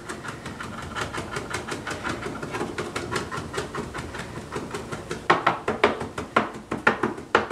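Kitchen knife rapidly chopping smashed garlic cloves on a cutting board, about five strokes a second, with a few harder, spaced chops near the end as the garlic is minced crosswise.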